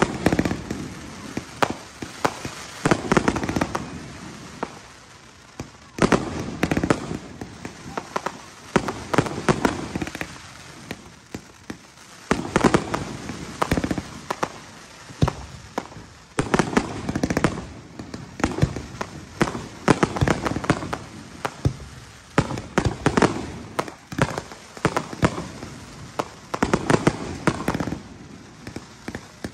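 Aerial fireworks shells bursting in a continuous display: sharp bangs coming in quick clusters every second or few seconds.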